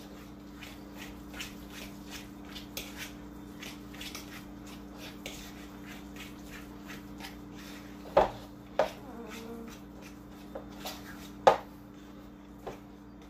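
A utensil stirring thick hummus in a bowl by hand, with irregular small clicks and scrapes against the bowl and a few louder knocks near the end. A steady low hum runs underneath.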